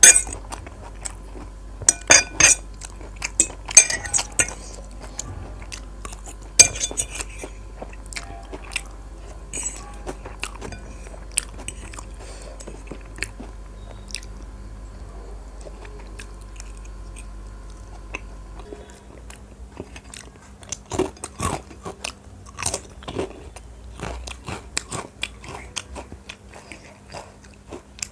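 Close-miked eating: irregular bites and chewing with crisp crunches, loudest in the first several seconds and again a little past the middle.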